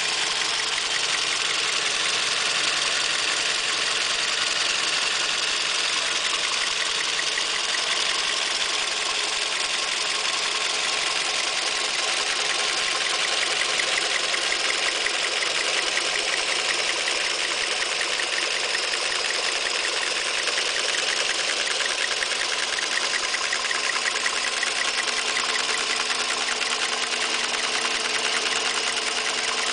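Toyota 2NZ-FE 1.3-litre VVT-i four-cylinder petrol engine idling warm and steady, with a fast light ticking over its running. A Toyota mechanic judged this noise normal.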